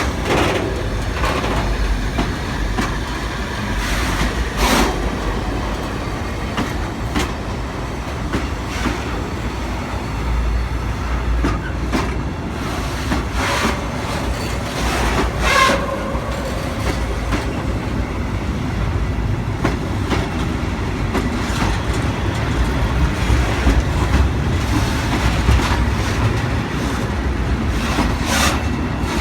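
Train being shunted through the station, rolling slowly with a steady low rumble. Wheels clank over rail joints and points every few seconds. A brief metallic squeal comes about halfway through.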